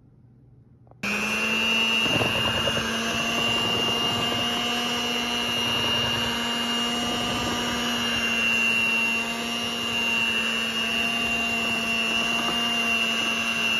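Electric hand mixer switching on about a second in and running at a steady speed, its beaters mixing flour into wet batter in a glass bowl.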